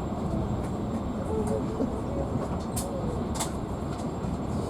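Passenger train running, heard from aboard the coach: a steady rumble of wheels on the track, with two sharp clicks about halfway through.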